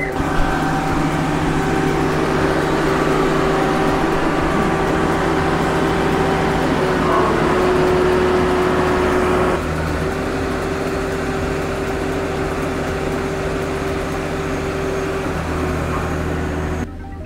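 Marine travel lift's engine running steadily, a constant drone with a steady hum in it.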